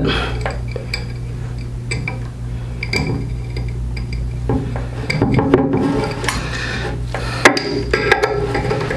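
Small metallic clicks and rattles of crimped wire terminals and a screw being handled inside a metal condolet housing, with one sharper click about seven and a half seconds in, over a steady low hum.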